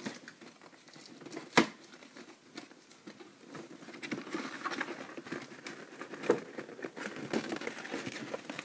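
Cardboard toy box being opened by hand, its packing tape cut and pulled. There are scattered clicks and taps, one sharp tap about a second and a half in, then steady rustling and scraping from about four seconds in.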